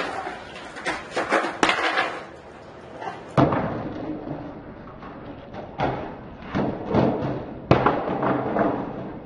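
Skateboard knocking against a metal bench and the pavement: a series of sharp clacks and thuds spread through, with wheels rolling between them.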